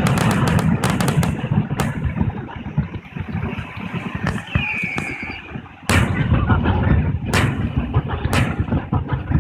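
Fireworks display: a rapid run of bangs and crackles in the first two seconds, then three single loud bursts spaced about a second apart in the second half, over a continuous low rumble.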